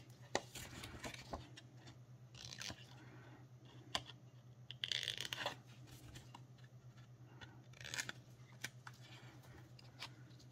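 Faint rustling and scraping of stiff cardstock being handled and cut, with scattered clicks and a longer scrape about five seconds in, over a low steady hum.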